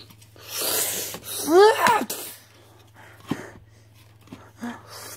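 A child making mouth sound effects for a toy fight: a breathy hissing rush, then a short cry that rises and falls in pitch, followed by a few light taps.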